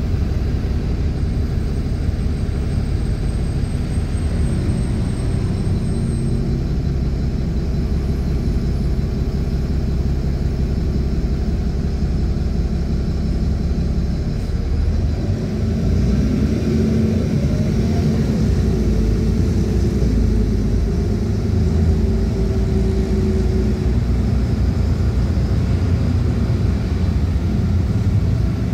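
City bus engine running, heard from inside the passenger cabin as a steady low rumble with road noise. About halfway through it grows louder and its pitch rises and falls as the bus gets moving.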